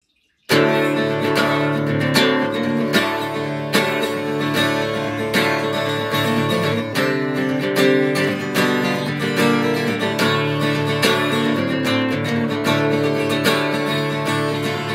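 Acoustic guitar playing a slow chord pattern with a steady, even rhythm, starting about half a second in.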